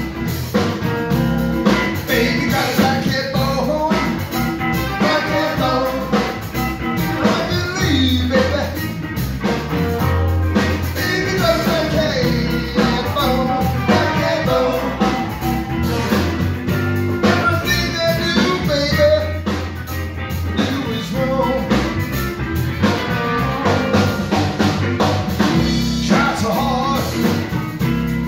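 Live blues-rock band playing: electric guitars and a full band backing with singing over the top.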